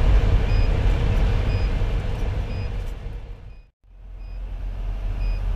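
Cab-interior rumble of a 2010 Pierce Velocity fire engine with its Detroit Series 60 diesel, cruising at highway speed with road and tyre noise, and a short electronic beep about once a second. The sound fades out just before the middle and fades back in.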